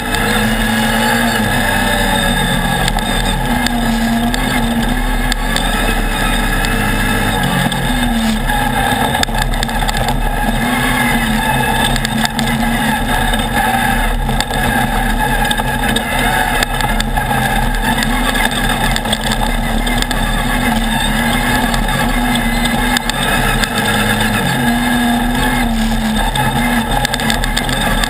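Off-road race buggy's engine running hard, heard from on board, its note stepping up and down a few times as it changes speed. Steady clatter and knocks from the chassis and tyres on the rough gravel track run underneath.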